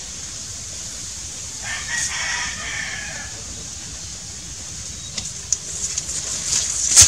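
A rooster crows once, about two seconds in, over a steady high hiss. Near the end come clicks and rustling as gloved hands work the air rifle's CO2 fill fitting.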